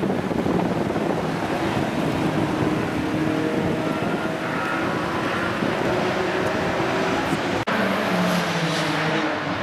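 BMW Z4 roadster's engine running as the car rolls slowly past, with a steady outdoor noise around it. The sound drops out for an instant near the end.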